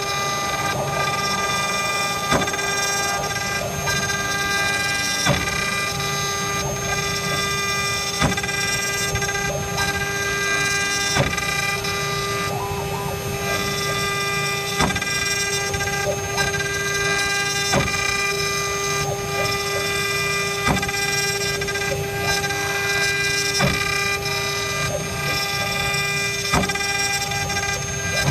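Six-spindle CNC wood router running, its spindle whining at a steady pitch while the cutter carves a wooden cylinder turned on the rotary axis. Sharp clicks come through every one to three seconds.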